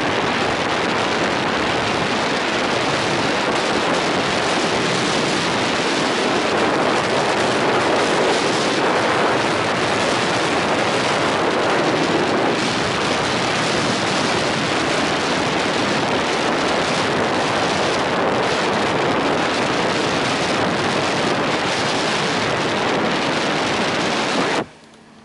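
Heavy, steady wind noise buffeting the microphone of a camera riding on a moving bus, with no engine tone standing out. It cuts off abruptly just before the end.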